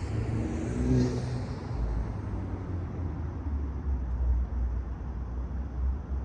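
Honda Civic Type R FL5's 2.0-litre turbocharged four-cylinder, fitted with a K&N drop-in air filter, heard while driving: a short rise in engine note with a hiss in the first second or so, then a steady low rumble.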